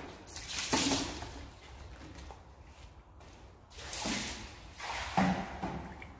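A cloth wiping over a car's body: three brief swishing strokes, the first about a second in and the other two close together near the end.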